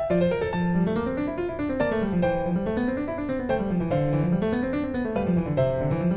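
Background piano music with a melody over a rising-and-falling bass line.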